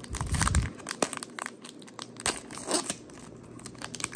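A foil trading-card pack torn open by hand, its wrapper crinkling and crackling in a run of sharp crackles. A dull low thump sounds at the very start.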